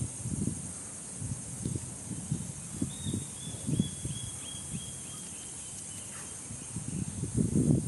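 Outdoor ambience: a steady high-pitched drone of insects, over irregular low rumbles and bumps. About three seconds in, a short run of quick high chirps falls slightly in pitch.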